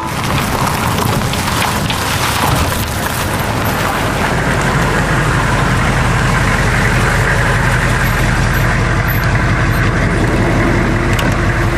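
A motor vehicle's engine running steadily: a low rumble under a loud, even hiss, the rumble growing heavier about a third of the way in.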